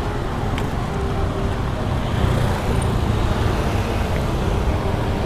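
Busy road traffic: a steady rumble of passing vehicles' engines and tyres.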